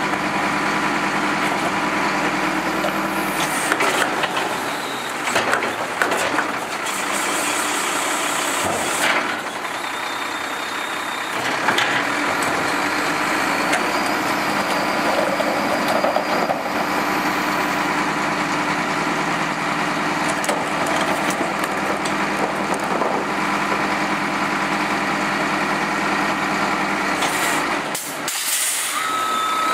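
Wittke Express manual side-load garbage truck's diesel engine idling steadily while recycling bins are tipped into its side hopper, with recyclables clattering in about a third of the way through. Near the end a short air hiss comes, and a reversing alarm starts beeping.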